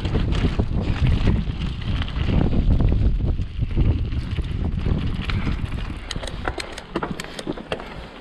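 Mountain bike riding fast down a dirt trail: wind buffeting the microphone over tyre rumble and frame rattle. In the last couple of seconds it eases off as the bike slows, leaving a run of sharp clicks and rattles.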